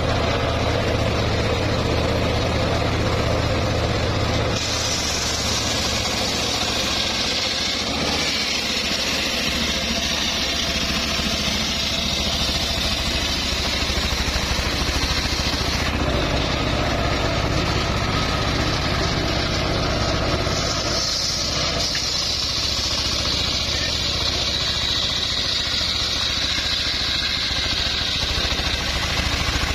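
Homemade circular saw bench ripping a log lengthwise: the blade's high, steady cutting noise over the constant hum of the drive motor. The cutting noise comes in a few seconds in, drops away for a few seconds past the middle, then resumes.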